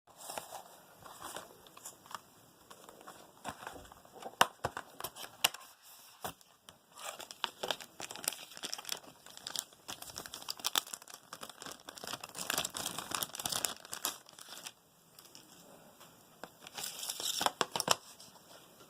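Packaging being crinkled and torn open, with irregular rustling, crackling and sharp clicks that come and go in bursts.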